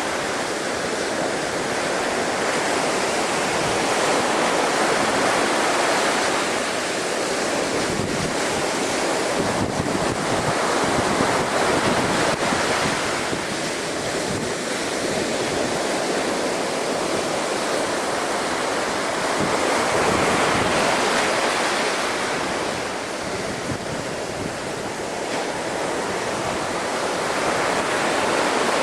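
Storm-driven waves of a hurricane-swollen bay at high tide breaking and washing against a sea wall, a continuous rushing that swells and eases every few seconds, with gusts of wind buffeting the microphone.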